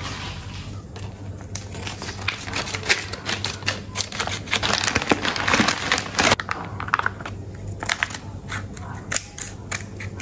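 Plastic food packaging crinkling and rustling as a bag of frozen fish balls is handled, opened and tipped into a plastic tub, with many sharp clicks and crackles. A steady low hum runs underneath.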